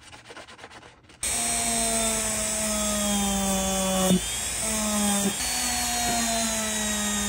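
Quiet sponge scrubbing, then about a second in a handheld rotary tool starts loud with a small wire brush wheel against a bare diecast metal model truck body. Its motor whine sags in pitch under load and jumps back up twice.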